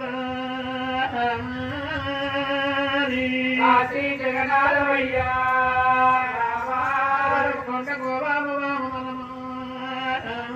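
Sung chanting of a Telugu Oggu Katha folk ballad through a PA system, with long held, wavering notes over a steady low drone.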